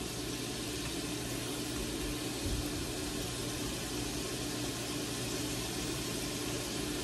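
Homemade potato fries frying in a pot of hot oil: a steady sizzling hiss, with a steady low hum underneath.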